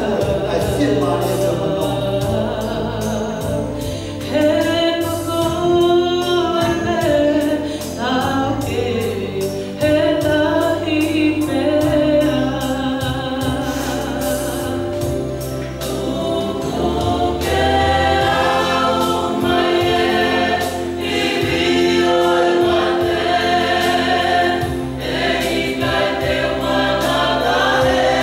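A small group of singers performing a hymn together in harmony, one voice carried on a microphone.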